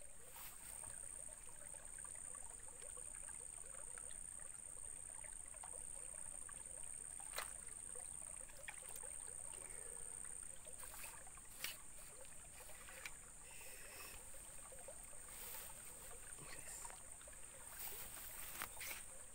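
Faint outdoor ambience dominated by a steady, high-pitched insect drone, with a few soft clicks and knocks now and then.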